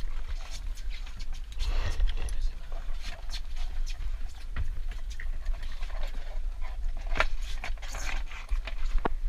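Scuba gear handled on a dive boat deck: scattered light clicks and knocks of equipment and hoses, with short breathy hisses, over a steady low rumble.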